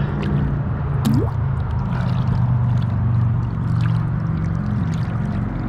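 Water sloshing and gurgling against the side of a kayak as a big black drum is held in the water to revive it, with scattered small splashes and clicks. Under it runs a steady low engine-like hum.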